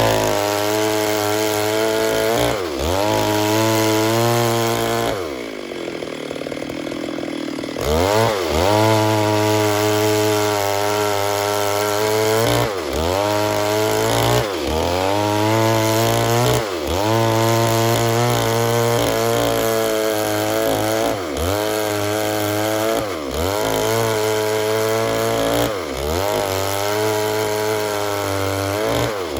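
Stihl MS 382 two-stroke chainsaw running at full throttle, its pitch dipping sharply and recovering every couple of seconds. About five seconds in, the throttle eases to a lower pitch for two or three seconds, then the saw revs back up and runs on.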